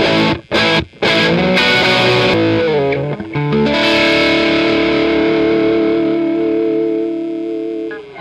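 Distorted electric guitar through a Marshall JTM 45-style amp: chords with two brief choked gaps in the first second, then a chord struck about three and a half seconds in and left to ring, fading near the end.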